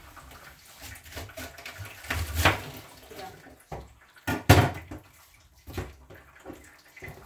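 Water splashing at a kitchen sink, with irregular knocks and clatters of things being handled in it; the loudest splashes come about two and a half and four and a half seconds in.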